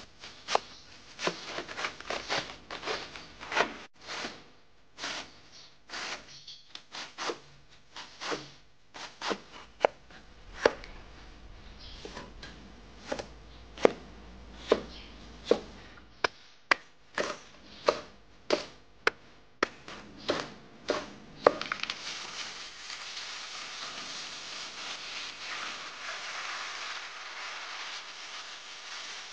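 A Chinese cleaver chopping vegetables on a wooden cutting board, in sharp irregular strokes about two a second. About twenty-two seconds in, the chopping stops and food sizzles steadily in a hot pot.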